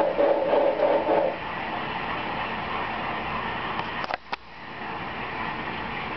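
Sound-equipped model steam locomotive: a loud whistle blast that cuts off about a second in, then a steady hiss of the engine's sound running. A couple of sharp clicks come about four seconds in.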